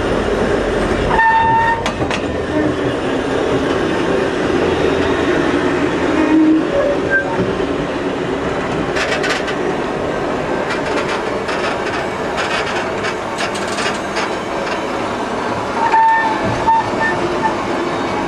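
Freight train wagons rolling over the track: a steady rumble and rattle of wheels on rails, with clusters of sharp metallic clicks in the middle. Brief high-pitched wheel squeals come about a second in and again near the end.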